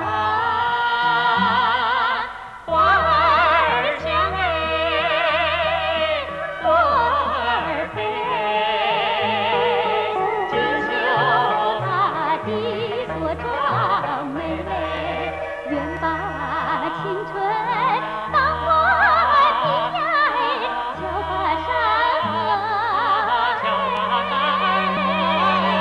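Soundtrack music: a melody with heavy vibrato over a bass line of held low notes, with a brief drop in loudness about two seconds in.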